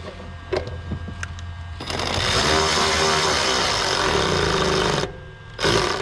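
Electric ratchet running a screw down for about three seconds, starting about two seconds in, then a brief second burst near the end.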